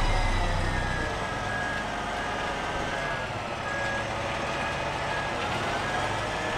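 A truck-mounted Palfinger T-50 hooklift raising a loaded roll-off container, with the hydraulics whining over the truck's engine running under load. The whine dips in pitch just after the start and rises again near the end.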